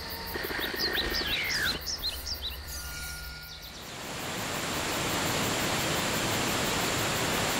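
Nature ambience: birds chirping over a low rumble in the first few seconds, then a steady rush of falling water from about four seconds in.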